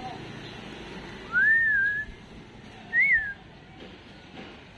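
Whistling, in clean single-tone notes: the falling end of a note at the very start, a rising then held note about a second in, and a short up-and-down note about three seconds in.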